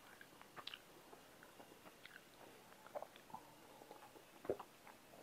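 Faint close-up eating and drinking sounds: scattered soft mouth clicks of chewing, then sips of water from a glass, with one louder soft thump about four and a half seconds in.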